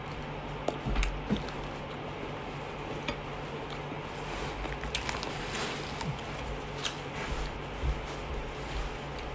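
Close-up eating sounds: a person chewing fried chicken and pulling it apart by hand, with scattered small clicks and wet smacks that come thickest about two-thirds of the way through, over a steady low hum.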